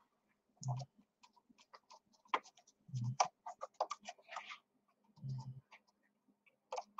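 Paper and cardstock being handled on a craft table: faint crackling and small clicks, with three soft thumps about two seconds apart.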